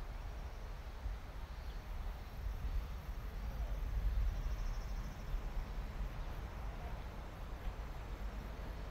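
Low rumble of a KiHa 40 diesel railcar's engine, swelling slightly about four seconds in as the car comes out of a tunnel, with faint insect chirping.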